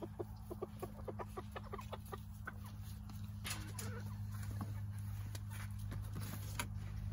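Backyard hens clucking: a quick run of short clucks, about four or five a second, for the first two seconds or so, then scattered single clucks and a few sharp clicks, over a steady low hum.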